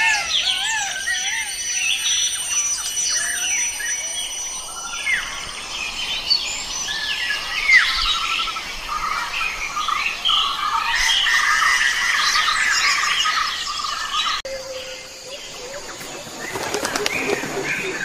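Many small birds chirping and calling at once, a dense chorus of overlapping short chirps and whistled glides. The mix changes about fourteen seconds in, and a brief rapid rattle, like fluttering, comes near the end.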